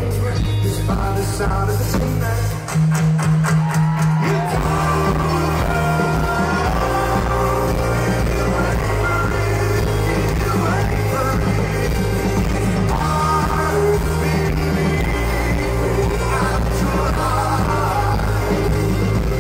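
Live rock band playing amplified drums, bass and guitars, heard from among the audience.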